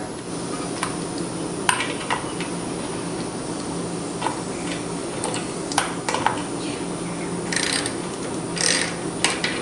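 Light metal clicks and clinks at uneven intervals as a lawn mower's carburetor float bowl and jet are fitted back and threaded tight, with a couple of short scraping rustles near the end. A steady low hum runs behind.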